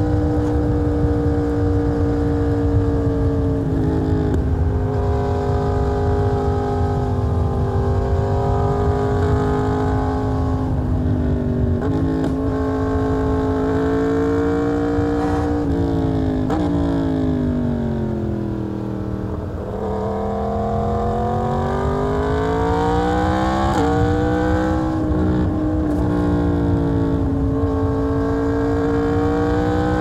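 Yamaha MT-10's 998 cc crossplane inline-four engine pulling hard on the road, with wind rushing on the microphone. The note is broken briefly a few times by gear changes. Past halfway the revs fall away over a few seconds, then rise again as the bike accelerates.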